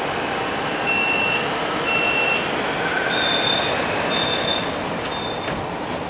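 Metro door-closing warning beeps: two short beeps, then three higher-pitched beeps, as the car doors slide shut, with a knock near the end as they close. Under it runs the steady hum of the stationary subway car.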